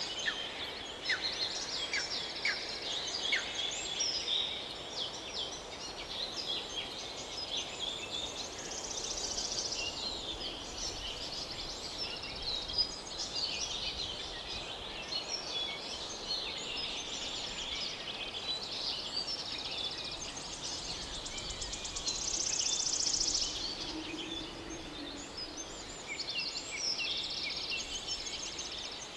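Many small birds chirping and trilling at once, short overlapping calls, over a steady outdoor hiss.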